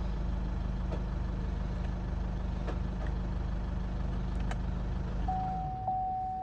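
Car engine idling steadily with a low, even pulsing; the owner hears a knock in it whose cause is unknown. About five seconds in, a steady single-tone beep starts, and moments later the engine is switched off and runs down.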